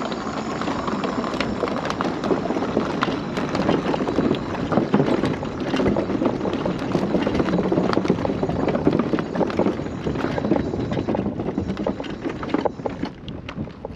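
Mobility scooter wheels rolling over the planks of a wooden footbridge: a steady rumble with a rapid stream of small clacks as the tyres cross the board joints. It gets quieter for the last few seconds.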